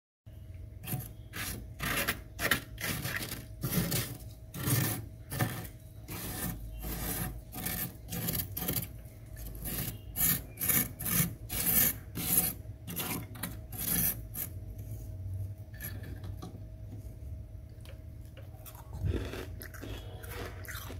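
Thick freezer frost being scratched and dug at by fingertips: a quick series of rasping scrapes, about two a second, growing softer in the last several seconds.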